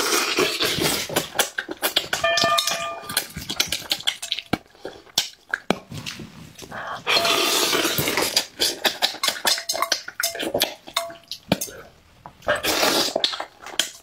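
Close-miked eating of spicy braised crucian carp: wet chewing and many sucking, smacking clicks, with loud slurps at the start, from about seven to nine seconds in, and again near the end.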